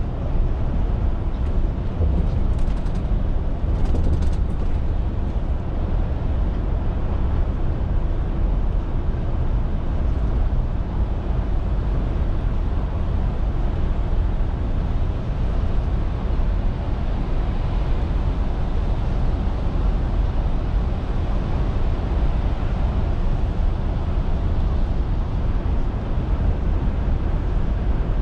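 Scania R450 articulated lorry on the move: its straight-six diesel engine and road noise running steadily, mostly low in pitch, as heard from the cab.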